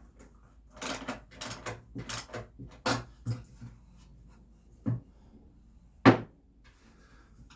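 Short knocks and clacks of wood and metal hardware from tightening the nut on a bag board's leg bolt and handling the leg. A quick run of knocks comes in the first few seconds, then two separate knocks, the second and loudest about six seconds in.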